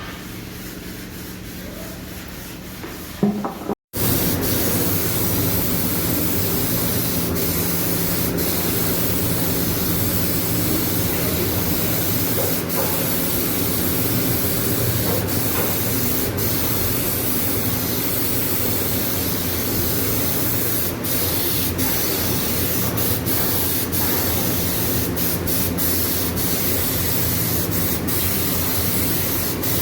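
Steady spraying hiss with a low hum under it, starting after an abrupt cut about four seconds in; before the cut, quieter rubbing.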